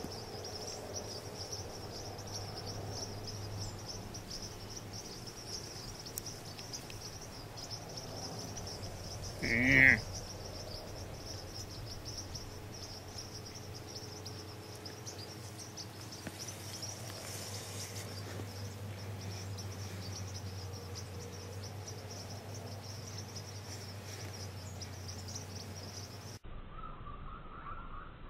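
Evening insect chorus: crickets chirring steadily, with a low steady hum beneath. About ten seconds in comes one short, loud, pitched call.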